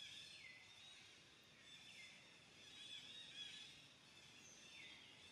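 Faint forest ambience: a steady chorus of high-pitched wildlife calls, with a few calls that slide down in pitch.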